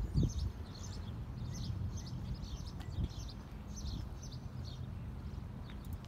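Small birds chirping over and over in short, high notes, over a steady low rumble with a few dull thumps.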